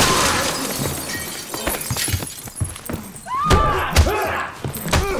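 Fight sound effects: scuffling and repeated thuds of blows, with broken glass crunching and tinkling on the floor and short pained grunts from the fighters.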